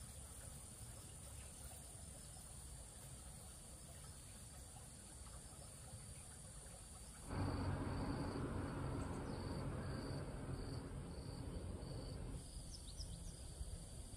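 Insects droning in a steady high-pitched whine. About halfway through, it switches abruptly to a louder, low rumbling noise with a faint pulsing chirp over it, which lasts about five seconds before the insect whine returns.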